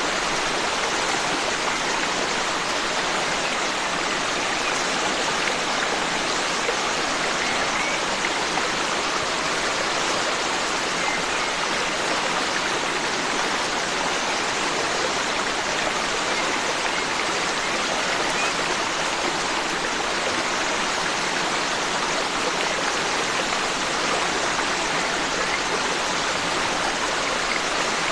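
Forest stream flowing steadily, an even, unbroken rush of running water.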